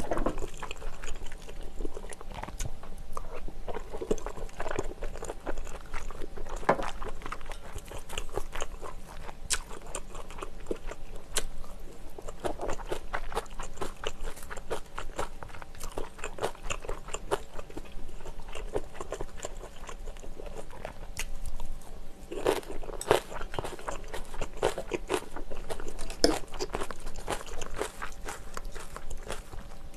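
A person chewing and biting mouthfuls of seafood rosé pasta made with glass noodles, close to the microphone: many small irregular mouth clicks and smacks, a little louder near the end.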